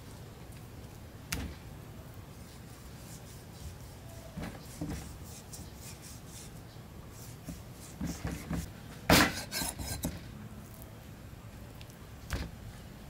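Meat cleaver slicing raw pork belly on a wooden chopping block: scattered knocks of the blade striking the wood. A quick run of knocks comes about eight to ten seconds in, the loudest near nine seconds.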